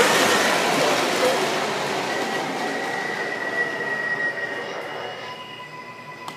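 MTH R142A model subway train pulling away and running off, its rumble fading steadily, with a high wheel squeal held for a couple of seconds in the middle.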